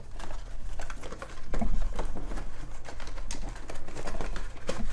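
Handling noise from an RC car and its packaging being handled: irregular clicks, taps and light rustling over low thumps, the heaviest thumps about a second and a half in.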